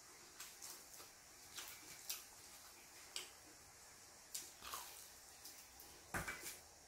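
Someone biting into and chewing fried chicken with crisp batter: a scatter of short sharp crunches and wet mouth clicks, the loudest about six seconds in.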